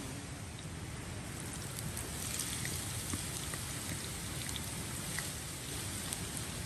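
Rain falling, with individual drops ticking, more of them from about two seconds in.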